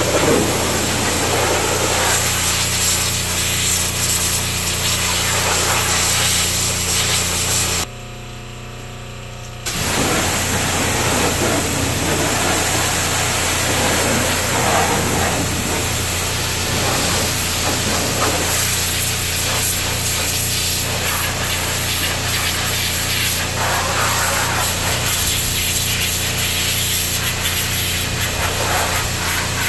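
Pressure washer spraying a high-pressure jet onto a tractor, its pump motor humming steadily under the hiss of the spray, blasting off degreaser and old caked-on grease. The spray breaks off for under two seconds about eight seconds in, then resumes.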